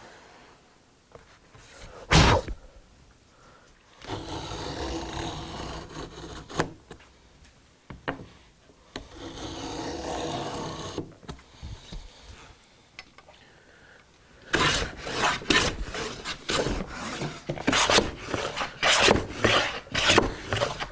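A Stanley 71½ hand router plane shaving a recess into a pine board. There is a sharp knock about two seconds in, then two long scraping cuts, and in the last third a quick run of short, rasping cutting strokes.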